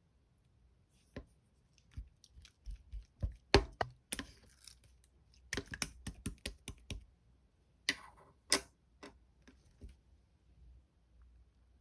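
Slime being pressed and squished by hand, giving irregular sticky clicks, crackles and pops, with the loudest pops around three and a half and eight and a half seconds in.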